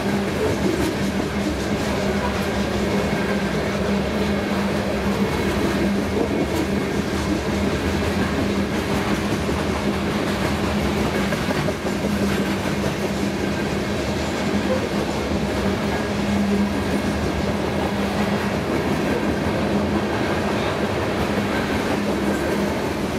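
Loaded covered hopper cars of a freight train rolling past: a steady rumble of steel wheels on rail with a continuous low hum.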